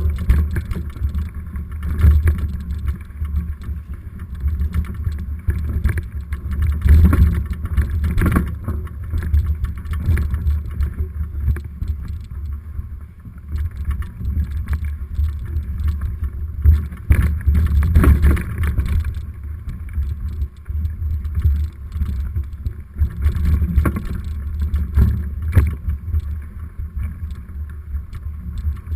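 Mountain bike rattling down a rough trail, heard through the bike-mounted action camera: a constant low rumble of riding vibration and wind, broken by frequent sharp knocks and clatters as the bike hits bumps.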